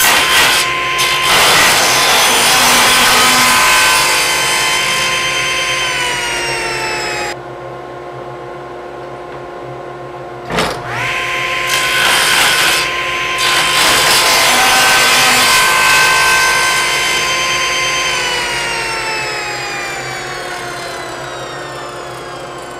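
Table saw cutting a slot in a wooden board in repeated passes. The blade's cutting noise is heard over the motor's whine, and the motor's pitch falls from about six seconds in. A click about ten seconds in brings the pitch back up for a second pass, and the pitch falls away again over the last few seconds.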